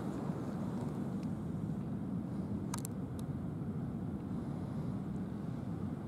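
Steady low outdoor rumble with a few short, sharp clicks about halfway through.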